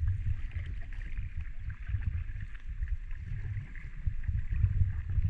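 Wind buffeting the microphone of a camera held out from a kayak, a low uneven rumble, over a fainter steady hiss.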